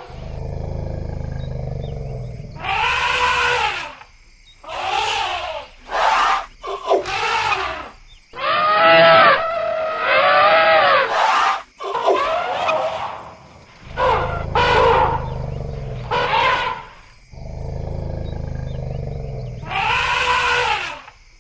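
Elephants trumpeting again and again, about a dozen calls that each rise and fall in pitch, with stretches of deep low rumbling in between.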